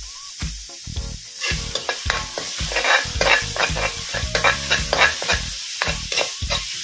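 Metal spatula stirring and scraping palapa, a minced spice-and-coconut mixture, as it fries in oil in a wok, with a steady sizzle; the frying and scraping get louder about a second and a half in.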